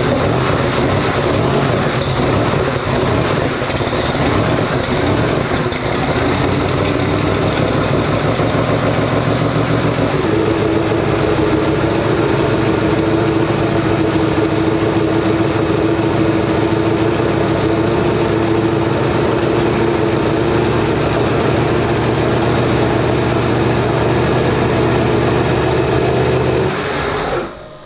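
Drag-race car engine running at a steady, uneven idle. About ten seconds in it settles onto a slightly higher, steadier pitch, and it shuts off suddenly near the end.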